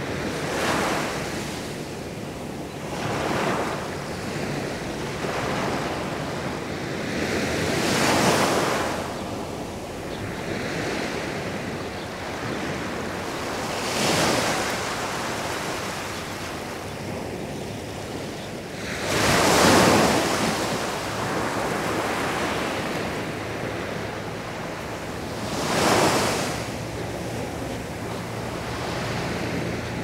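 Sea waves breaking on the shore over a constant wash of surf. Each break swells up and dies away, six in all at irregular gaps of a few seconds, the biggest about two-thirds of the way through.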